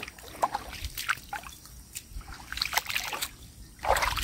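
Shallow water splashing and sloshing around rubber boots wading through marshy, grassy shallows, in uneven strokes, with a louder slosh near the end as the mesh fish trap is grabbed in the water.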